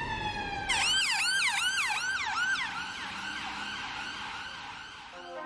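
Ambulance siren: a slow falling wail switches to a fast yelp about a second in, then fades out toward the end.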